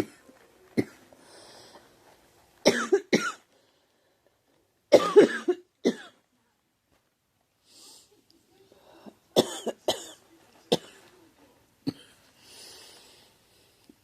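A girl coughing repeatedly in short bouts of two or three sharp coughs, with faint breaths drawn between the bouts.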